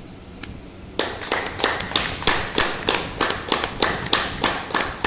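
Hands clapping in a quick, fairly even rhythm, several claps a second, starting about a second in after a moment of quiet room tone.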